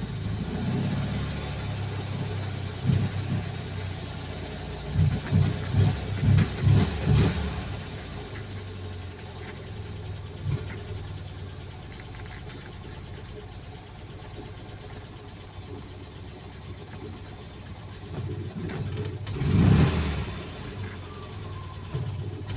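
Fiat 126's air-cooled two-cylinder engine running roughly and sputtering, with a run of uneven rev blips about five to seven seconds in and another swell near the end, between them a lower, unsteady idle. It is struggling to start and keep running.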